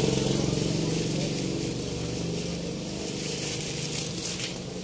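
Coconut milk boiling in a metal wok, a steady bubbling hiss. An engine drone underneath fades away over the first few seconds.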